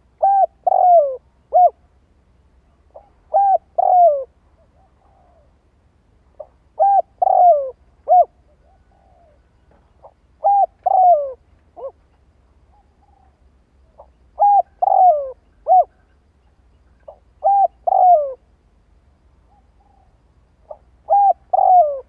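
Spotted dove cooing: a three-to-four-note coo phrase with falling final notes, repeated about every three and a half seconds. It is the decoy dove's song used to draw wild doves in.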